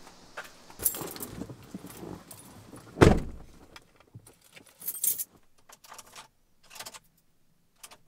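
A pickup truck's cab door opening and a person climbing in, with a heavy door slam about three seconds in, then a key ring jangling in short bursts as the key is handled at the ignition.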